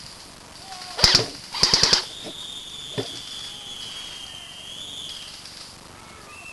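Airsoft guns firing in two short rapid bursts of cracks, about a second and two seconds in. A thin high steady tone follows for about three seconds.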